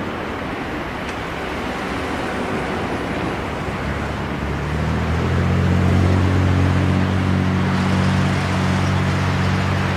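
Boeing 767-300ER's two turbofan engines at takeoff thrust during the takeoff roll: a continuous jet noise that swells louder about five seconds in, when a deep steady rumble joins it as the airliner draws nearer.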